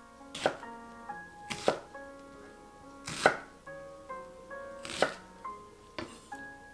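Chef's knife slicing through an onion and knocking on a wooden cutting board: a handful of separate, unhurried cuts, about one every second and a half.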